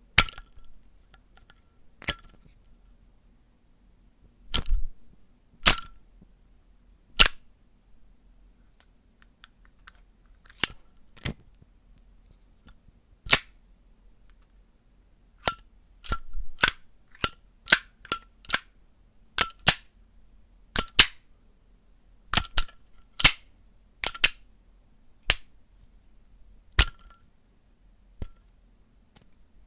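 Zippo lighter's metal lid clinking open and shut over and over: sharp metallic clicks with a brief ring, unevenly spaced, some in quick pairs.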